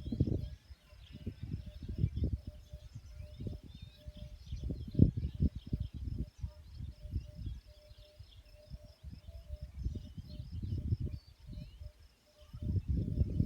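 Outdoor nature ambience: uneven low rumbling in gusts, with faint bird chirps and a steady pulsing insect call behind it.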